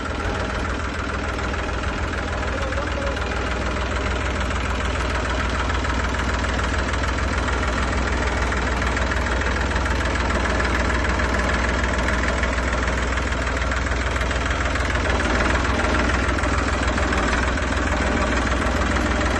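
An engine running steadily, with a dense low rumble that grows slowly a little louder.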